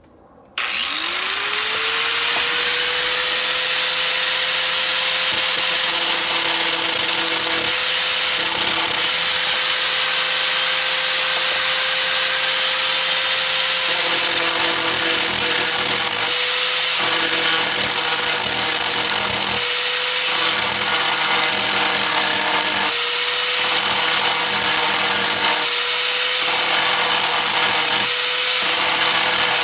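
Corded electric angle grinder switched on about half a second in, winding quickly up to speed and then running steadily. Several times its pitch dips briefly and a rougher grinding noise comes and goes as the disc is pressed against the work.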